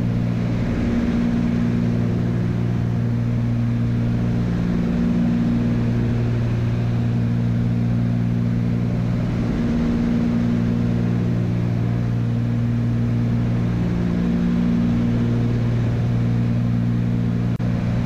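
Cabin drone of a Cessna 310's twin piston engines and propellers at cruise power, a steady low hum over rushing air noise. It waxes and wanes slowly every four to five seconds: the beat of two engines not quite in sync.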